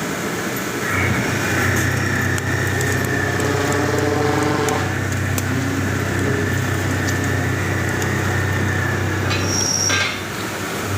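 OC-500V drilling machine running: a steady low motor hum with a higher whine, starting about a second in and stopping about a second before the end, with a short high whistle just before it stops.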